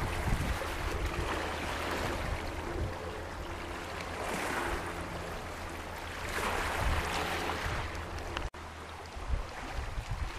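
Small Baltic Sea waves lapping and washing over a pebble beach, with two louder swashes near the middle, over a steady low rumble. The sound breaks off sharply about eight and a half seconds in, leaving a quieter hiss.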